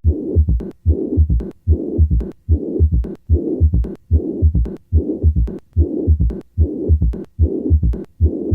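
Heart sounds of severe mitral regurgitation heard through a stethoscope at the apex, beating regularly at about 70 a minute. Each beat carries a blowing murmur through systole up to the second heart sound, then a third heart sound and a short low-pitched rumbling mid-diastolic murmur from increased flow out of the atrium in diastole.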